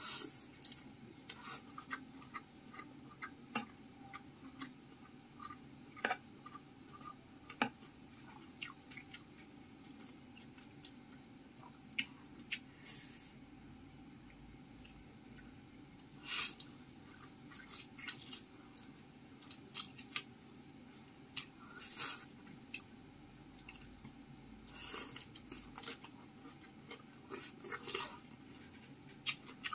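Close-miked wet chewing and mouth smacking of spicy fried noodles and chewy imitation octopus strips. Many short sharp clicks and wet smacks are scattered irregularly throughout.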